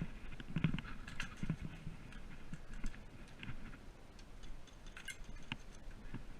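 Footsteps on the ground with light clicks of gear, in soft, irregular thumps about one or two a second.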